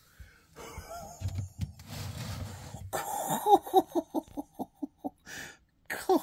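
A man laughing: about three seconds in, a quick run of short pitched bursts, about five a second, that grow shorter and fade out, with another short burst just before the end. Before the laugh, only low muffled sounds.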